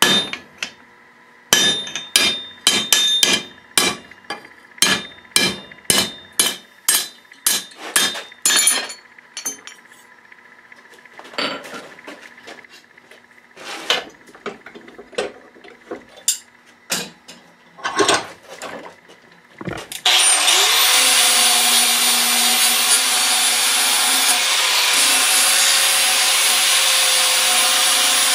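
Hammer blows on red-hot O1 steel over the anvil's hardy, cutting the blade blank: about two strikes a second for the first nine seconds, then sparser. About twenty seconds in, a DeWalt angle grinder starts and grinds steadily on the steel held in a vise, rounding the corners of the hardy cut.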